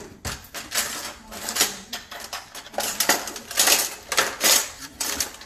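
Knives and kitchen utensils clattering in a drawer as hands rummage through it: a stream of irregular clinks and knocks.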